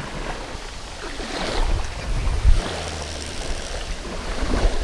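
Wind buffeting the microphone in uneven gusts, over small waves lapping and breaking on a lake shoreline.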